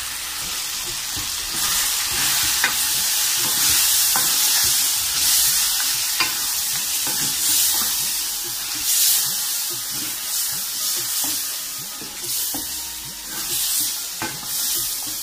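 Chicken karahi with yogurt frying and sizzling in a metal pan while it is stirred with a wooden spoon, with scattered short scrapes and knocks of the spoon against the pan.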